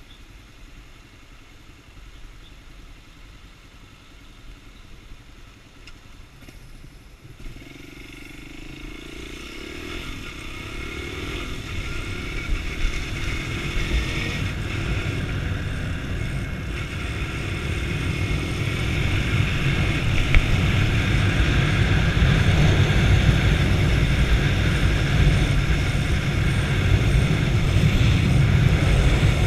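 Sundown STX 200 motard motorcycle ridden on a wet road: fairly quiet for the first several seconds, then engine and road noise build steadily as it gathers speed.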